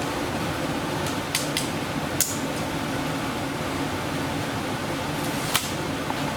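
Steady whir of a fan running, with a few sharp, light clicks scattered through, the loudest near the end.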